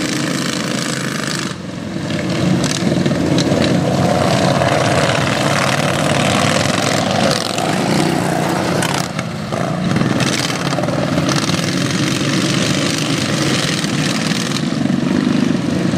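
Engines of several modified racing lawn tractors running hard together, their pitch rising and falling as they pass.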